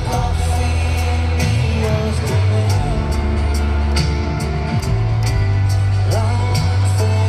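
A live rock band playing through a stadium PA, heard from the stands: held bass notes, drums with cymbal strokes on a steady beat, electric guitar, and a male lead voice singing.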